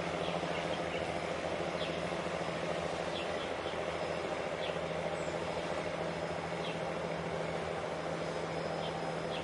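Steady low engine drone with a constant hum, unchanging throughout, with a few faint high bird chirps over it.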